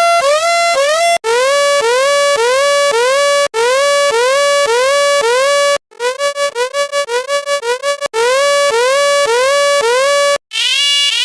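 Electronic warning alarm tones: a synthesized beep that steps up in pitch, repeated about twice a second, switching to a new pattern every couple of seconds after a brief break. In the middle it becomes a fast pulsing alarm, and near the end a thinner, higher-pitched version.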